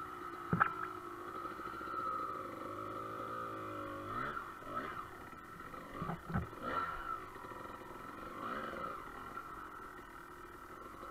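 Dirt bike engine running at low revs, its pitch rising and falling as the bike picks its way over rocks. There are two sharp knocks, one about half a second in and one about six seconds in.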